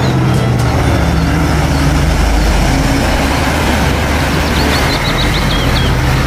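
Diesel engine of a cab-over semi-trailer truck running steadily as the truck drives past, with road noise. A short run of bird chirps comes near the end.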